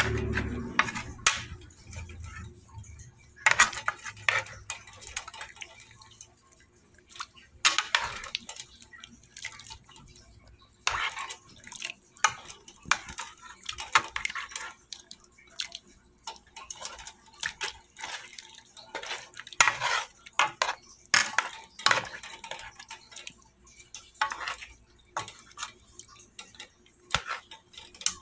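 A metal spoon scraping and clinking against a cooking pot in irregular strokes while chicken leg quarters are turned and stirred in broth, with some liquid sloshing.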